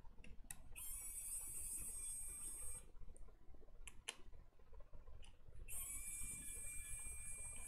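Cordless electric precision screwdriver whining as it turns screws out of the metal shield over a laptop motherboard. It runs twice, about two seconds each time, with a few small clicks of the tool on the metal sheet in between.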